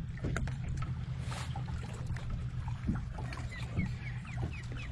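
Bass boat's outboard motor idling steadily, with scattered small knocks. Near the end, short repeated calls begin, about three a second.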